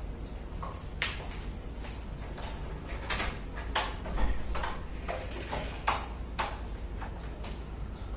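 A series of sharp, irregular clicks and knocks, some with a short metallic ring: heeled sandals on a tiled floor, then the metal lock and latch of a front door being worked.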